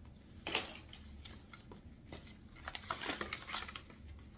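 Cloth rustling as a cotton nightie is handled: one sharp rustle about half a second in, then a run of smaller rustles and light clicks around three seconds in.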